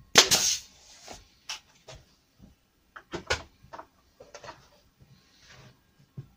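A nail gun fires once, pinning a board template down to the bench. Several lighter knocks and clicks of handling follow.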